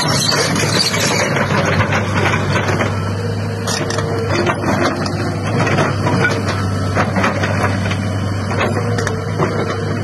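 Kobelco SK210 excavator's diesel engine running steadily under load with a low hum, with a few brief whines from the hydraulics and the scraping and crunching of soil as the bucket digs into and dumps onto the pile.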